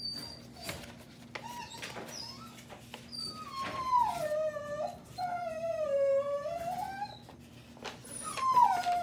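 Dog whining and howling in long, drawn-out cries that slide down in pitch: one about three and a half seconds in, a second right after it that dips and rises again, and a third near the end.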